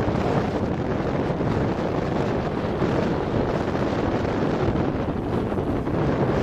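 Strong wind blowing over the microphone, a steady low rushing noise with no let-up, from the straight-line winds of a severe thunderstorm outflow.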